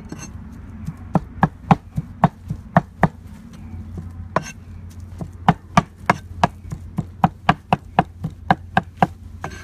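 Cleaver mincing raw pork on a round wooden chopping board: a steady run of sharp knocks, about four a second, with a pause of a second or two about three seconds in.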